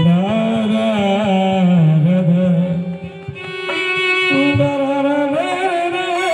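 A man singing a slow melody of long, wavering held notes into a microphone through a PA, with instrumental accompaniment; the line breaks briefly about three seconds in, then resumes.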